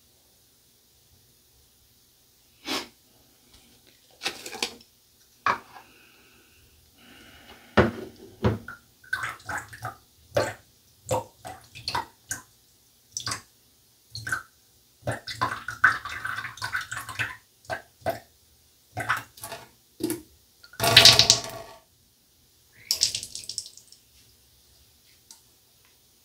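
Water splashing and dripping at a bathroom sink: a string of short splashes, with one longer, louder splash late on.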